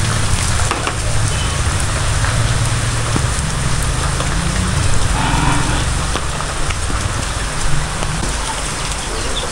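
Steady rain falling, with a continuous low rumble underneath.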